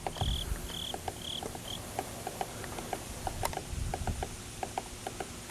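A bird gives four short, high, evenly spaced call notes in the first two seconds. Irregular light tapping follows, a few taps a second, fitting a woodpecker pecking at the wood around its nest hole.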